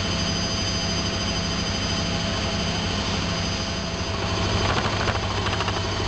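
Front-loading washing machine whizzing steadily on a fast spin, a constant droning hum, with a brief rapid rattle about five seconds in.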